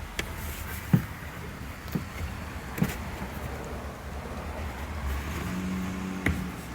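Knocks and taps from hands and tools working on the pickup's cab panels: three sharp knocks in the first three seconds and another near the end, over a low steady hum, with a short steady tone just before the last knock.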